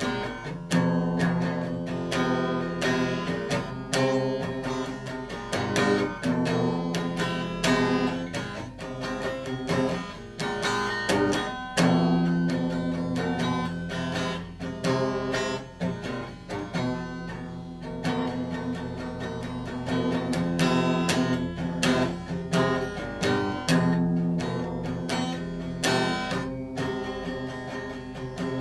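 Guitar played solo with picked and strummed notes, over a low bass note that returns about every six seconds in a repeating pattern.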